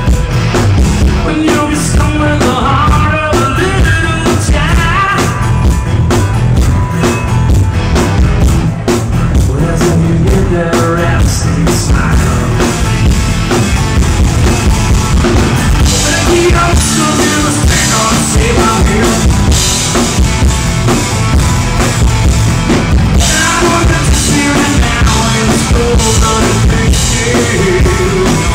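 Live rock band playing a song at full volume, with a driving drum kit under electric instruments.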